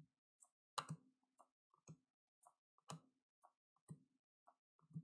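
Bowman Draft paper baseball cards being flipped one at a time through a hand-held stack, giving faint clicks and taps about once a second.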